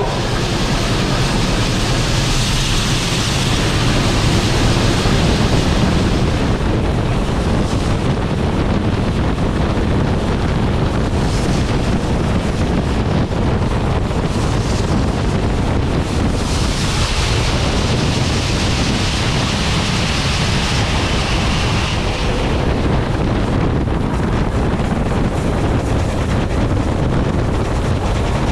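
Wind buffeting a camera mounted on the outside of steam locomotive 3801, over the steady rumble of the train running along the track. A brighter hiss swells for a few seconds about a second in and again about halfway through.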